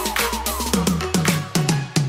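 Electronic dance music with a fast, even beat, repeated falling synth notes and a deep bass line.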